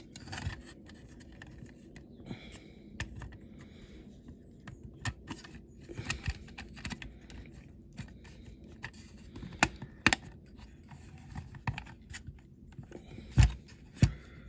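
Small clicks, taps and scrapes of a diecast toy car's metal body and base plate being handled and pressed together as the base is fitted back on, with a few sharper knocks near the end.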